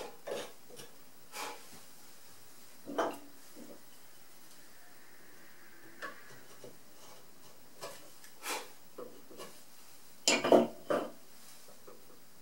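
Hand-pushed carving chisel paring hard keyaki (zelkova) wood in a finishing pass: short, crisp cuts at irregular intervals, loudest in a quick cluster a little after ten seconds in.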